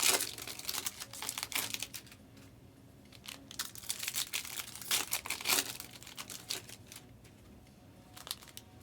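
Trading-card pack wrappers crinkling and cards rustling as they are handled, in several short bursts.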